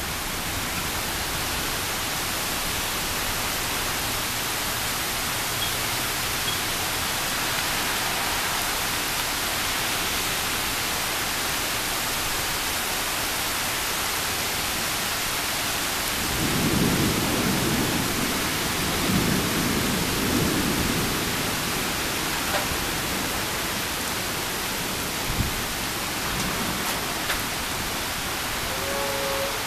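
Heavy rain falling in a steady hiss during a severe thunderstorm. About halfway through, a low rumble of thunder rolls for several seconds.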